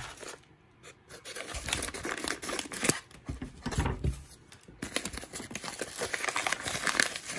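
Yellow padded mailer envelope being handled and torn open by hand: paper crinkling and tearing in irregular rustles, after a quiet first second and a half.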